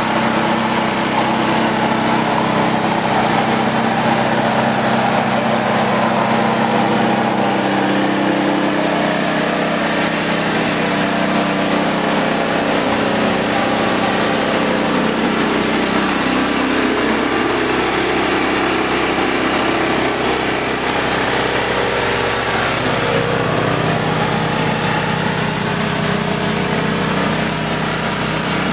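Small single-cylinder snowblower engine running steadily. Its note drops and then recovers about two-thirds of the way through, as the load on the engine changes.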